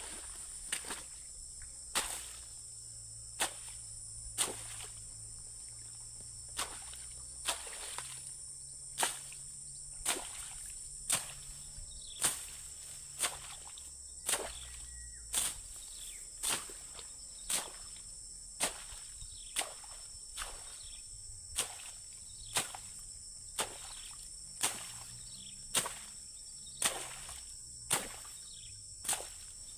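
A machete slashing through reeds and tall grass, about one stroke a second, each a sharp chop with a brief swish of cut stems, while the path is cleared. A steady high drone of insects goes on underneath.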